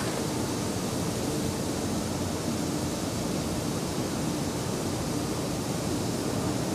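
Steady, even roar of a steelworks blast furnace with a faint hum through it.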